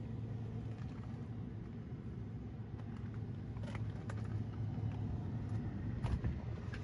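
Steady low outdoor background rumble, with a few faint clicks near the middle and one near the end.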